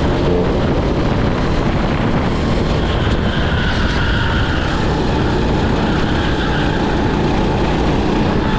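Racing kart's engine running hard at speed, heard from the driver's seat with wind on the microphone; the speed drops toward the end as the kart slows for a corner.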